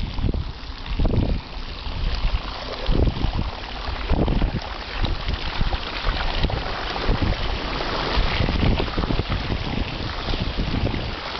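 Flevo Racer recumbent bicycle's wheels ploughing through floodwater: a continuous rushing and splashing of spray, growing stronger after the first few seconds as the water deepens. Wind buffets the microphone in gusty low rumbles.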